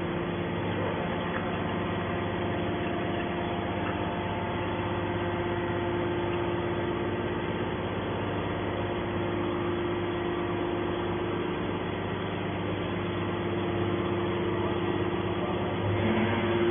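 Hydraulic scrap metal baler's motor and pump running with a steady hum.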